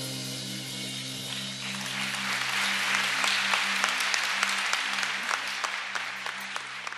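Audience applauding as a song ends, over a held low chord from the band that rings on. The clapping swells in about a second and a half in.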